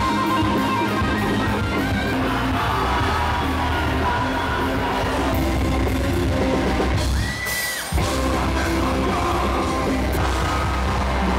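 Loud rock band music with singing; about seven and a half seconds in the band drops out briefly under a held high note, then comes back in all at once.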